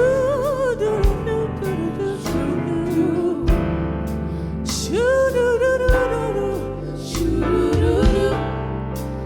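Gospel song with band: a lead voice sings held, wavering notes over bass and a steady drum beat.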